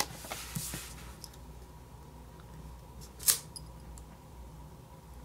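Paper planner sticker sheet being handled: a rustle at the start, a few faint light taps, and one short sharp crackle of paper about three seconds in.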